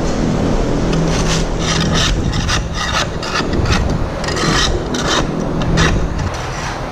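Repeated scraping strokes, about two or three a second, as the old layer of wood shavings is cleared off bare concrete stall beds, over a steady low hum.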